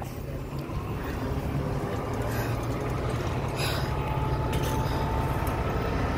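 Fire engine running steadily, a low, even engine hum that grows slowly louder.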